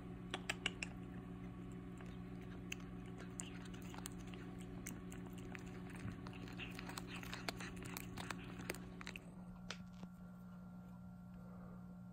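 Young kitten licking and lapping at a squeeze-tube cat treat, with quick wet clicks of its tongue and mouth over a steady low hum. The licking stops about nine seconds in.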